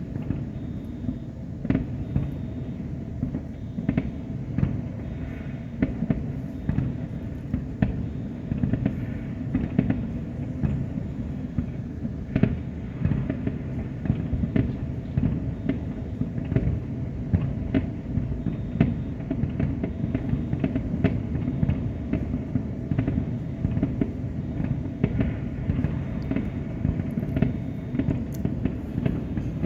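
Fireworks display: a dense, continuous run of bangs over a steady low rumble, with sharper cracks standing out every second or so.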